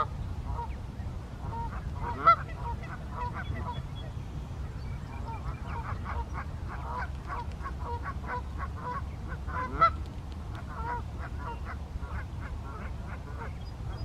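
Canada geese honking, many short calls in quick succession, with two louder honks about two seconds and ten seconds in. A steady low wind rumble on the microphone runs underneath.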